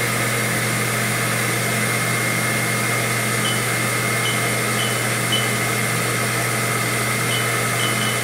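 2001 Haas VF2 vertical machining center's spindle running steadily at 2,000 RPM: a steady high whine over a low hum.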